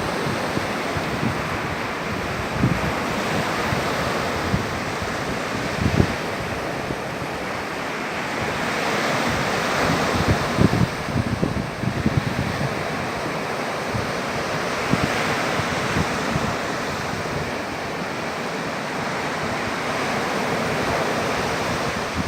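Sea surf washing steadily onto the shore, swelling and easing, with wind buffeting the microphone in irregular gusts.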